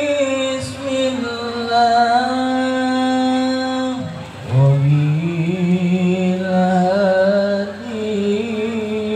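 A voice singing long, drawn-out notes of a slow melody, breaking off briefly about four seconds in and starting again lower.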